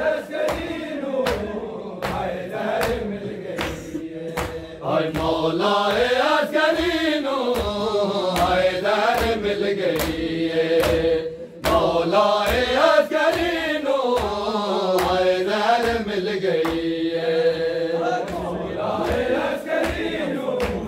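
Men's voices chanting a noha, a Shia mourning lament, together, over sharp rhythmic strikes of matam chest-beating about two a second. The sung chorus swells about five seconds in.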